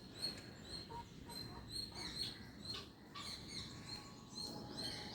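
Guinea fowl giving soft, high, short peeping calls in an even run of about three a second, with faint scattered clicks and rustling.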